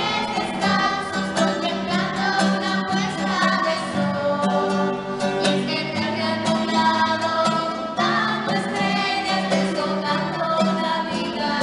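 Women and girls singing a song together to a strummed acoustic guitar.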